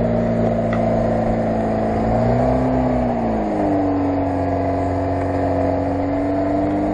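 Lada Niva engine running steadily under throttle while the car labours in deep mud ruts on a slope. Its pitch swells briefly about two to three seconds in, then settles into a steady, slightly higher note.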